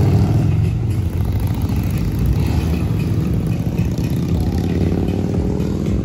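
Motorcycle engine running close by, its pitch rising in the second half as it revs.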